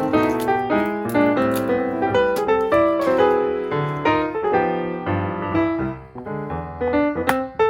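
Background piano music, a busy run of notes that briefly falls away about six seconds in.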